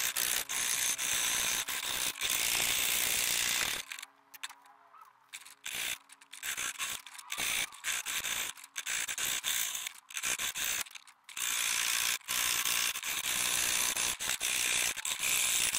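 Jeweler's saw blade sawing through brass plate in fast strokes, a high-pitched rasping, with a pause about four seconds in and short breaks later before steady sawing resumes.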